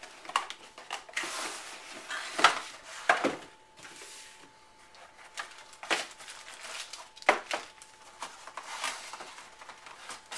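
Cardboard box and plastic packaging being handled while accessories are taken out: rustling and crinkling of plastic bags, with several sharp knocks and clatters from a hard plastic stand.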